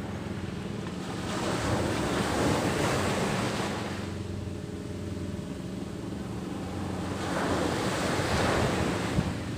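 Sea surf washing onto the beach in two surges a few seconds apart, each swelling and dying away, over a steady low hum.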